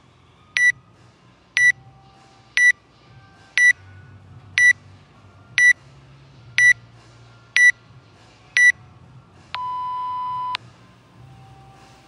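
Workout timer app's countdown: nine short high beeps, one a second, then one long lower beep about a second long marking the start of the workout.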